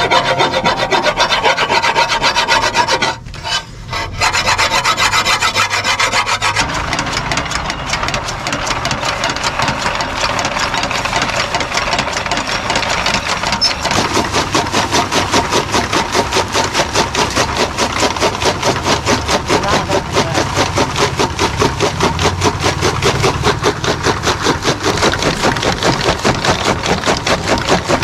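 Flywheel blade of a fodder chaff cutter (toka) being filed by hand, a rasping scrape repeated stroke after stroke. About halfway through, the machine starts chopping green fodder stalks with a regular chop-chop of about two cuts a second.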